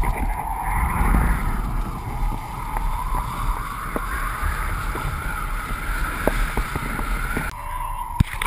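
Wind and water rushing over an action camera on a pole as a kiteboard skims through choppy water, with scattered short knocks and splashes. The rush drops off sharply about seven and a half seconds in as the board slows in the shallows.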